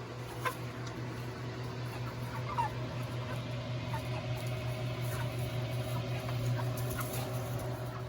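Seven-week-old meat chickens peeping and clucking softly, in short scattered calls over a steady low hum.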